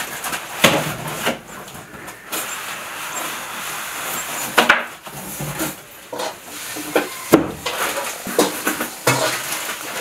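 Hands unpacking a computer monitor's accessories from the box: an irregular clatter of light knocks and clicks over rustling packaging as cables are taken out and unwrapped.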